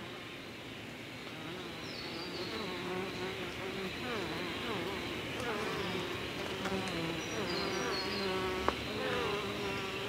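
Bees buzzing: several overlapping hums that drift up and down in pitch as they fly about. There is a single sharp click near the end.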